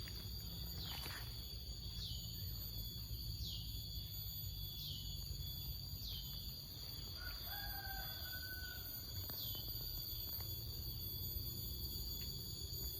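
Rural outdoor ambience: a bird gives a short, high, falling call about every second and a half over a steady high-pitched drone and a low rumble. A rooster crows faintly, once, a little past halfway.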